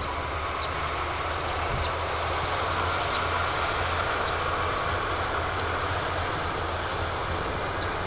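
A DF5D diesel-electric locomotive running in the distance as it approaches, a steady low engine drone under an even hiss.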